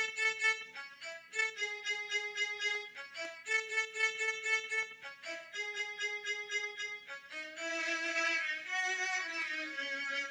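A melody in a synthesized violin voice played on the Walk Band phone music app, in short repeated phrases of held notes. Near the end it turns into a fuller, wavering passage.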